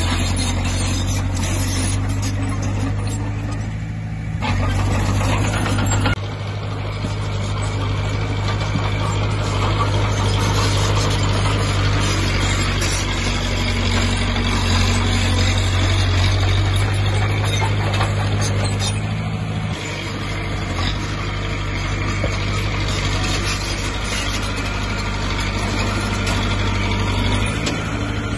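Diesel engine of a Komatsu D20P bulldozer running steadily, its level shifting a few times.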